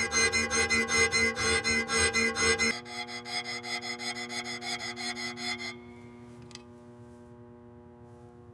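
Rapid rhythmic scraping strokes of hand filing or sanding, about five a second, loud at first, quieter from about a third of the way in, and stopping about two thirds in. A low steady hum of held tones runs underneath.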